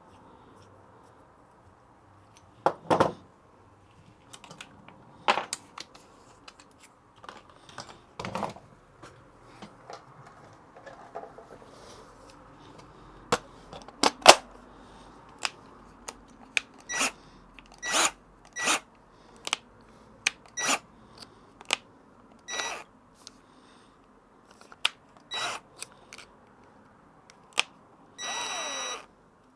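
Scattered knocks and metallic clinks of tools and hardware being handled on a workbench, some with a short ring. Near the end there is a brief whir about a second long.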